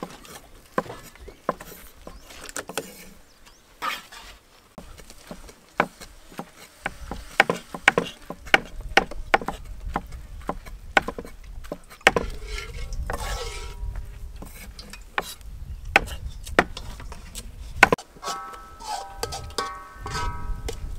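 Cleaver chopping a thin fried-egg sheet on a thick wooden chopping block: irregular sharp knocks that come faster from about a third of the way in. Near the end, a short pitched call is heard.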